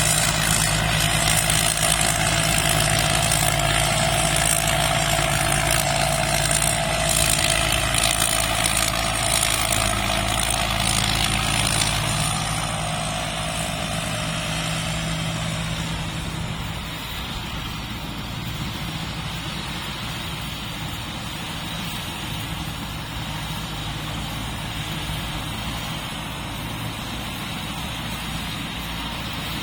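Rice combine harvester's diesel engine running steadily; it gets quieter about halfway through and then holds steady.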